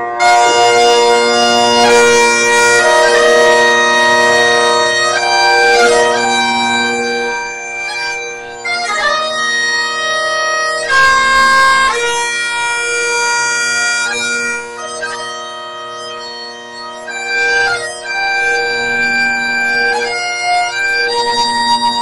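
Great Highland bagpipes playing a slow tune over their steady drones, the chanter's notes held a second or two each.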